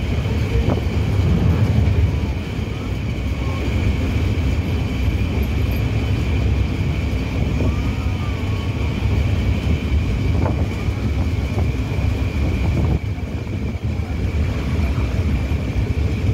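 Passenger train running across a long river bridge, heard from on board: a steady low rumble of wheels and carriages with a constant high whine, and wind buffeting the microphone.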